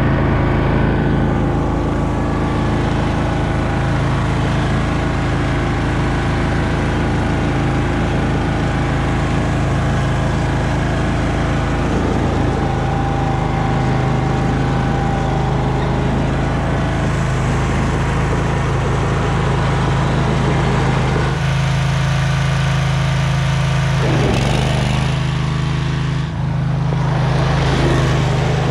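Husqvarna Rider 1200 ride-on mower's engine running steadily under way on a test drive after a hydrostatic transmission oil change and neutral adjustment.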